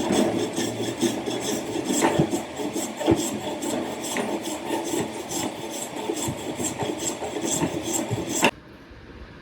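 Rasping, rubbing strokes on wood, about three or four a second, like hand sanding or filing, with an occasional knock. The sound cuts off abruptly near the end.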